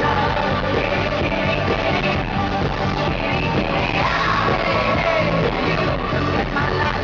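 A live pop band playing through a concert PA: two women sing over drums, electric guitar and keyboards, heard from the audience in the hall.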